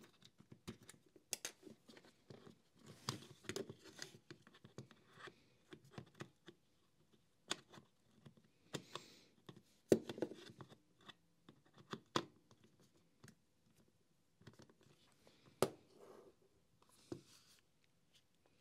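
Hands handling the plastic housing and wiring of a Makita cordless heat gun during reassembly: scattered light clicks, taps and short rustles, with a sharper knock about ten seconds in and another a few seconds before the end.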